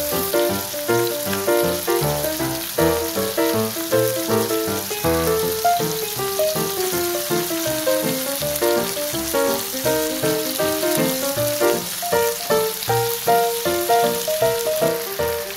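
Thin chicken slices sizzling as they fry in oil on a flat non-stick griddle pan, under background music with a steady melody of quick notes.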